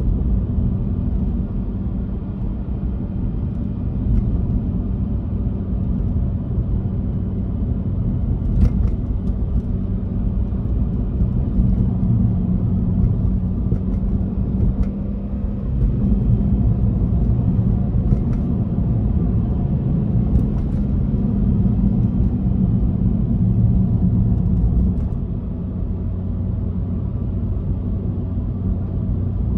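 Subaru Legacy 3.0R's EZ30R flat-six engine pulling in second gear, heard from inside the cabin over road and tyre rumble. The engine note rises and falls with the throttle and eases off about twenty-five seconds in.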